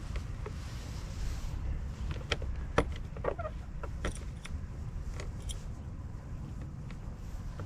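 Power drill driving stainless steel self-tapping screws into the trailer's metal frame, a steady low motor hum with scattered clicks and knocks.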